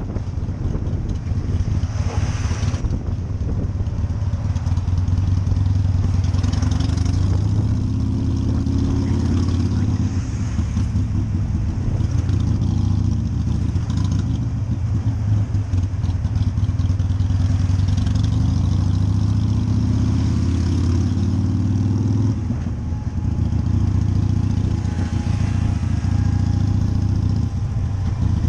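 Harley-Davidson V-twin motorcycle engine running at low revs while riding slowly through queued traffic, the pitch rising and easing a little with the throttle. Wind buffets the helmet-mounted microphone about two seconds in.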